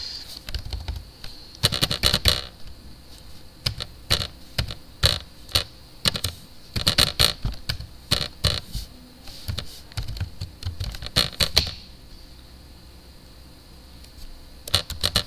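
Typing on a computer keyboard: irregular runs of quick keystroke clicks, then a pause of a few seconds before the typing starts again near the end.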